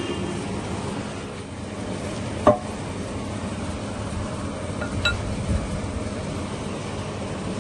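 Metal-on-metal clinks as new roller bearings are handled and seated in a shredder gearbox housing: a sharp knock about two and a half seconds in and a short ringing clink about five seconds in, over steady background noise.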